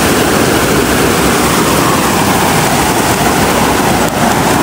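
Steady loud rush of fast-flowing river water, with a deep rumble under it.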